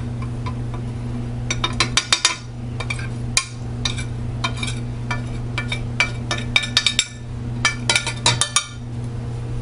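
Spoon clinking and scraping against a bowl in irregular clusters of taps while stirring a thick yogurt-and-spice marinade, over a steady low hum.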